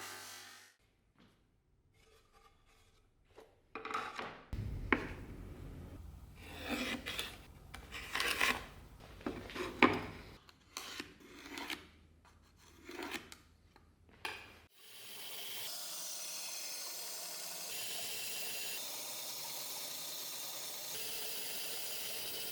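Hand abrasive work: irregular rasping, rubbing strokes with a few sharp clicks, like a file or sandpaper worked by hand over a workpiece. After a pause these give way to a steady, even hiss for the last several seconds.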